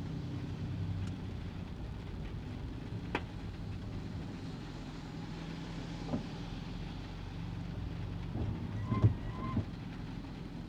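Kei car running along the road, heard from inside the cabin: a steady low engine hum with road noise. A few sharp knocks and rattles come through, the loudest about nine seconds in, with two brief squeaks just after it.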